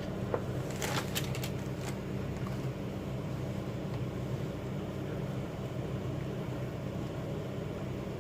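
Steady low hum, with a few faint clicks about a second in.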